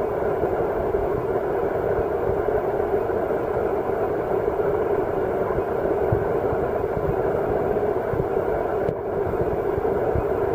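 Steady, muffled underwater rumble and hiss picked up by a submerged camera, with a brief dip about nine seconds in.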